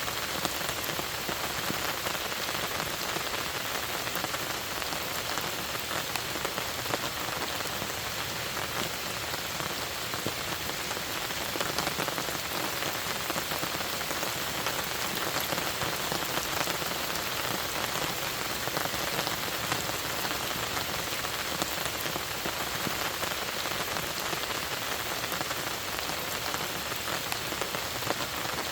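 Steady rain falling on a lake surface, a dense even hiss with many small drop ticks.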